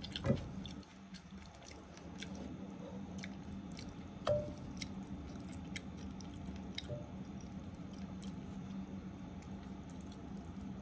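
Spaghetti with egg and bacon frying in a wok, with faint crackling over a steady low hum. A metal utensil knocks against the pan twice, about a quarter second in and about four seconds in, the second knock ringing briefly.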